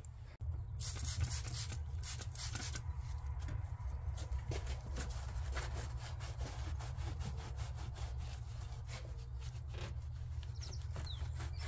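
Microfiber rag scrubbing degreaser-soaked grime off a car's engine bay sheet metal and cables, a fast, uneven run of rubbing strokes. A steady low hum runs underneath.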